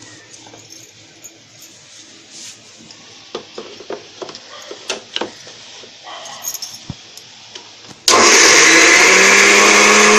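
Plastic lid pressed onto a steel mixer-grinder jar and the jar set on its base, with scattered small clicks and knocks. About eight seconds in, the electric mixer grinder switches on loud, its motor whine rising slightly in pitch as it grinds a dry chutney mix of grated raw mango, coconut, green chillies and garlic.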